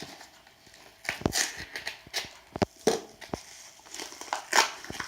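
Parcel packaging being handled and opened: irregular rustling and crinkling with scattered sharp clicks and taps, and a louder rustle near the end.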